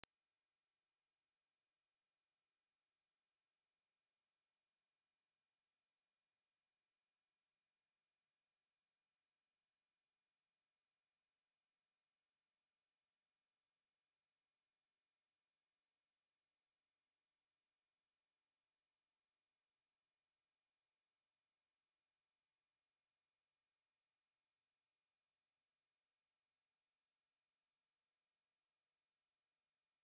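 A pure 8848 Hz sine tone, a single steady high-pitched whistle held at constant level, used as a speaker test and speaker-cleaning tone.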